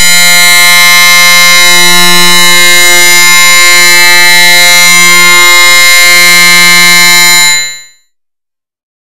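Loud, distorted electronic buzzing drone: one steady low pitch with a dense stack of overtones, like an alarm buzzer, with a brief break about six seconds in. It stops quickly about eight seconds in.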